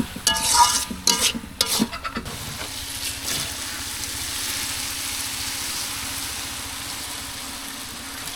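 Food frying and sizzling in hot oil in a pan over an open fire, stirred with a utensil that scrapes and rings against the metal several times in the first two seconds, then a steady sizzle.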